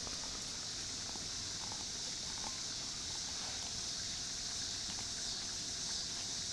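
A collie gnawing kernels off a corn cob, with small faint crunching clicks scattered through. A steady high-pitched hiss runs underneath and is louder than the chewing.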